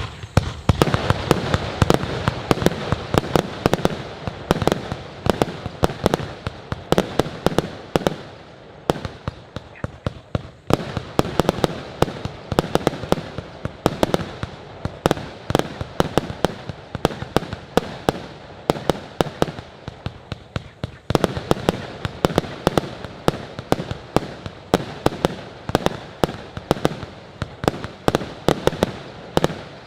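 A 100-shot 20mm firework cake firing in rapid succession: sharp bangs about three a second over a continuous crackle, easing off briefly twice before picking up again.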